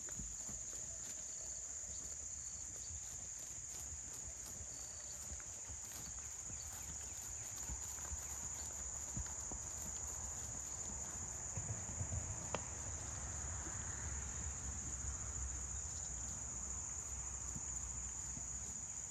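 Steady high-pitched chorus of insects in the summer grass, with soft low thuds of a horse's hooves loping on turf underneath.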